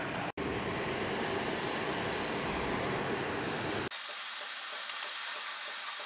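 Evaporative air cooler's fan running, a steady rush of air, with two short high beeps a little under two seconds in. Just before four seconds the sound cuts abruptly to a thinner, steady hiss.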